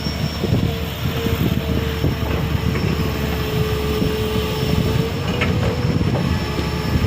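A motor vehicle engine running steadily, with a constant whine held at one pitch over a rough low running noise.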